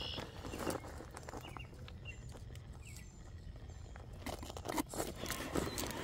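Scattered crunching and clicking of rock and gravel as a scale RC rock crawler works its way over boulders, getting busier and louder about four seconds in.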